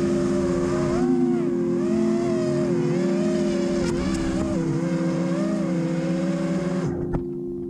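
Small racing quadcopter's brushless motors and three-blade props heard from the onboard camera: a whining buzz with prop-wash rush, its pitch rising and falling with throttle. The motors cut off suddenly about seven seconds in, with a small knock just after.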